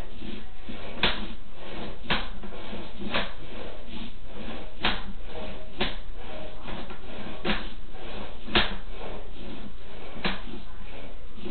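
Sewer inspection camera's push cable being fed down a sewer line in strokes, with a sharp knock every second or so over a steady hiss and low hum.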